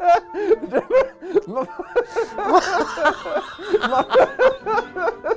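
A man laughing heartily in rapid, repeated ha-ha-ha pulses, with a breathier stretch in the middle.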